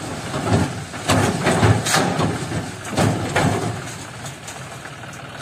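John Deere tractor's diesel engine running as its hydraulic tipper trailer dumps a load of sand and gravel. A rushing, rattling spill of the load sliding out is loudest in the first three seconds or so, then the engine runs on steadily.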